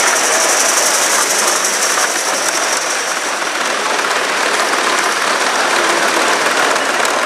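Gauge One live steam model train running on the track: a steady hissing rush with fast, fine ticking.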